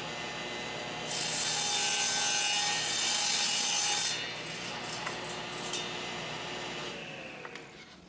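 Table saw blade cutting through a small piece of plywood, a loud hissing cut of about three seconds starting about a second in, over the steady running of the saw. After the cut the saw runs free, then winds down with a slowly falling tone near the end.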